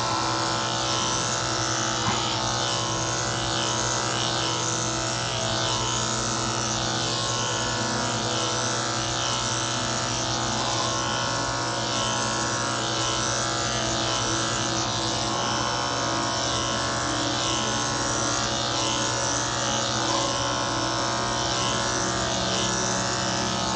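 Electric dog-grooming clippers with a long 3/4 blade running with a steady hum as they are drawn over a cocker spaniel's ear, knocking off the high points of the long ear hair.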